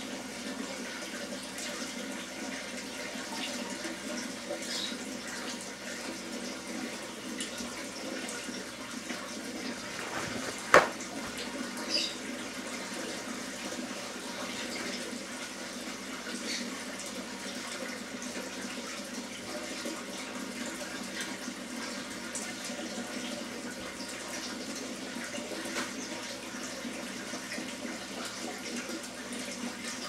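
Water running steadily during an aquarium water change, with one sharp knock about eleven seconds in and a smaller one about a second later.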